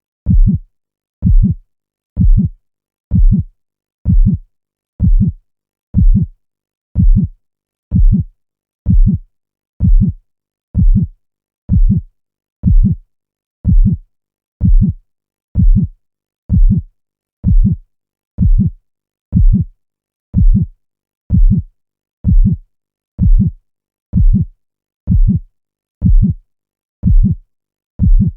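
A slow, steady heartbeat, about one low beat a second, with silence between the beats.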